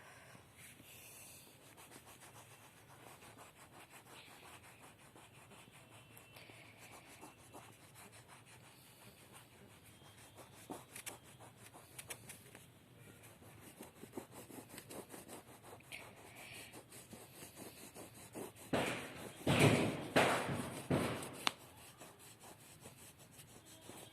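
Colouring on paper: a green colour rubbed back and forth to fill in a drawing, a faint scratchy rubbing, with a few louder, harder strokes about three-quarters of the way through.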